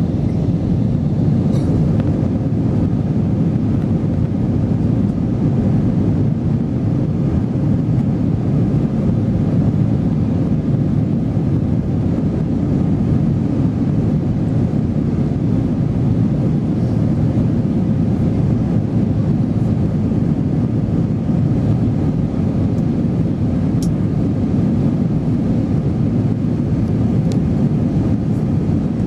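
Steady cabin noise inside an Airbus A321 in flight during the climb after takeoff: a loud, even rumble of the jet engines and airflow, deepest in the low end, with a faint steady hum.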